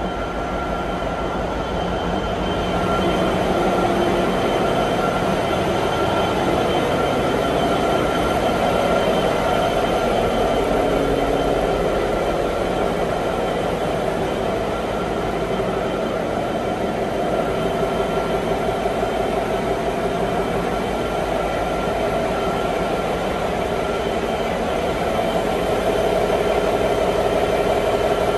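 Large marine diesel machinery running in an enclosed engine room: a loud, steady drone with a constant hum of tones and no pauses.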